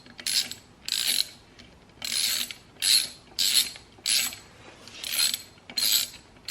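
Socket wrench ratchet clicking in short bursts, about eight back-and-forth strokes roughly every two-thirds of a second, as bolts are snugged down.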